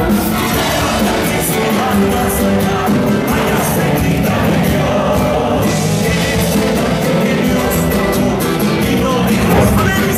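Live band playing amplified music with singing, a steady beat underneath.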